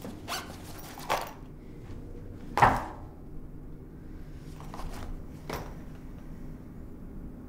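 Handling noises at a table: a few brief rustles and soft knocks, with one louder knock about two and a half seconds in, over a low steady room hum.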